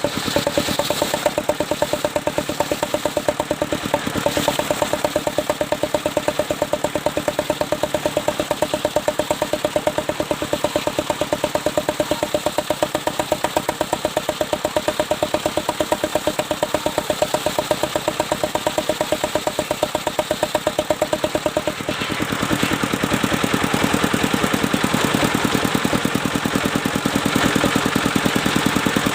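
Engine of a mobile circular sawmill running steadily with an even, rapid pulsing beat. About two-thirds of the way through, the sound turns louder and harsher.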